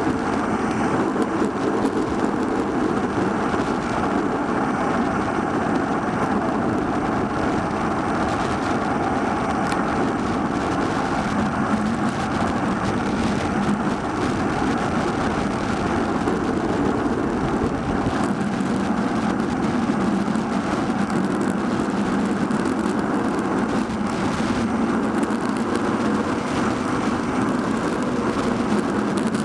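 Steady rushing wind and road noise on a Cycliq Fly 12 bike camera's microphone as the bicycle rides along at speed.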